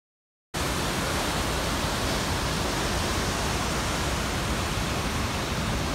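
A waterfall's whitewater rushing through a narrow rock canyon: a steady, even roar that cuts in suddenly about half a second in.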